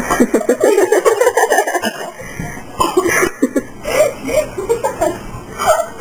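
Children laughing hard: a long unbroken run of laughter for the first two seconds, then shorter laughs.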